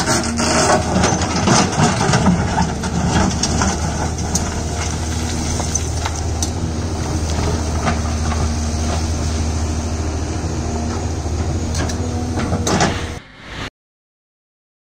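XCMG XE230C crawler excavator's diesel engine running steadily under digging load, with rock clattering and scraping as the bucket works through broken stone, busiest in the first few seconds. The sound cuts off near the end.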